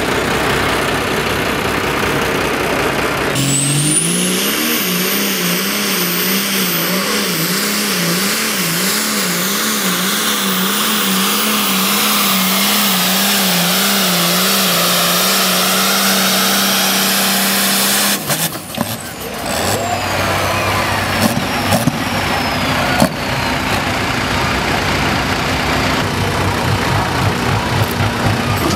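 Dodge Ram pickup's diesel engine pulling a weight sled at full throttle, its pitch held high and wavering quickly up and down, with a high whine climbing as it builds near the start. About 18 seconds in, the throttle is cut and the engine drops back to a lower, steadier run.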